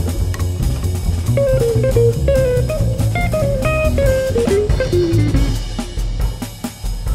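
Jazz recording: electric guitar playing a single-note melody over bass and drums. The melody steps downward and drops out about five and a half seconds in, leaving bass and drums as the level falls away.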